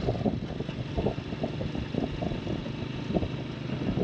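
Motorcycle engine running steadily while riding on the road, with short uneven spikes in its low rumble.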